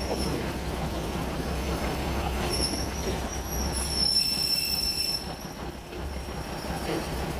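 Passenger train coaches rolling slowly through a station yard over a low steady rumble, with the wheels squealing on the rails in thin high tones from about two and a half seconds in until about five seconds.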